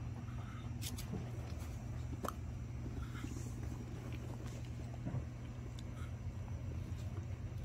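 A dog mouthing and chewing a piece of desalted gompi, a soft brown seaweed, with a few short wet clicks, over a steady low hum.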